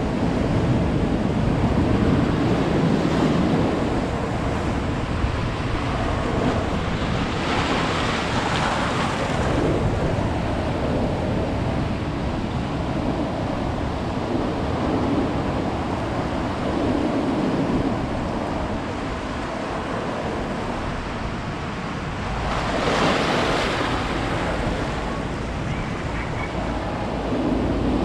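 Ocean surf washing on a beach, a steady rush with two louder breaking waves, one about eight seconds in and one about twenty-three seconds in.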